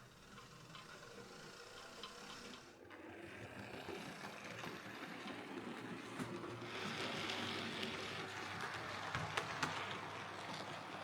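Hornby Railroad Class 9F OO gauge model locomotive and tender running along the track under DC power, a steady mechanical running noise with scattered clicks. It grows steadily louder as the locomotive comes closer.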